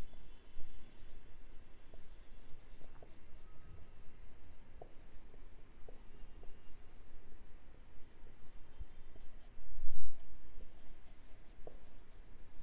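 Handwriting: a pen or marker scratching across the writing surface, with small taps between strokes. A short low thump about ten seconds in.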